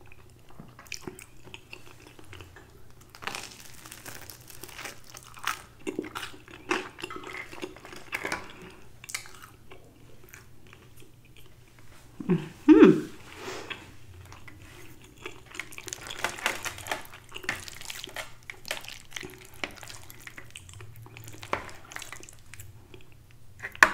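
Close-miked chewing and wet mouth sounds of someone eating creamy chicken fettuccine alfredo, with many small clicks and smacks. About halfway through there is a short, louder hummed 'mmm' in two parts.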